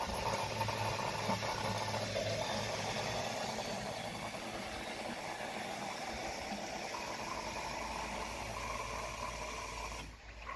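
Small electric bilge pump running on its manual switch, a steady hum with water rushing through it, that cuts off suddenly about ten seconds in.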